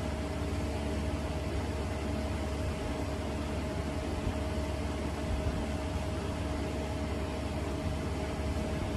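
Steady mechanical hum and hiss with a faint steady tone in it, the even running noise of an appliance such as a fan or air conditioner.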